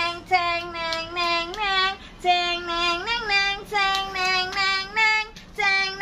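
A high child's singing voice carrying a simple melody: held notes, each ending with a short upward slide, in phrases with brief gaps between them.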